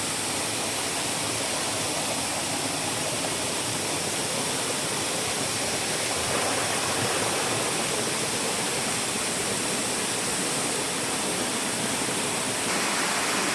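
Rushing water of a fast river with a heavy current, a steady even roar.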